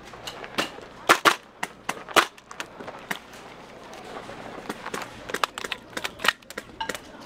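Airsoft guns firing: irregular single pops and short strings of shots, with the loudest cracks about a second and two seconds in.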